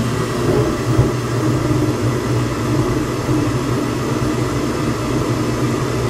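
80% gas furnace running with its burners just lit: a steady hum from the draft inducer motor under the rumble of the gas flames. One short click about a second in.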